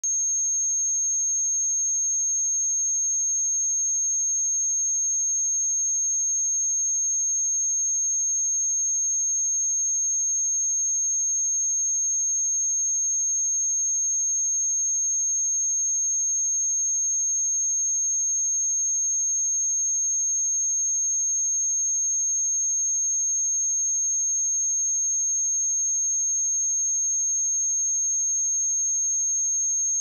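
Pure 6448 Hz sine-wave test tone, a single steady high-pitched whistle at constant level.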